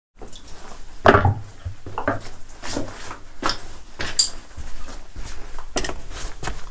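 Footsteps on loose slate fragments, uneven sharp steps about every half second to a second, the first about a second in the loudest.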